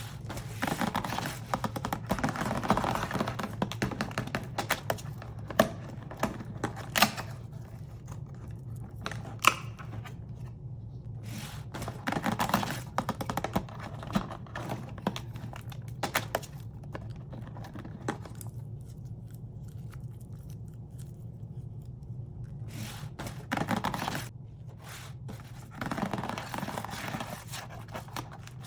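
Hands opening a Bluey advent calendar and unwrapping its mini toys: bursts of rustling and tearing packaging, with scattered sharp taps and clicks between them.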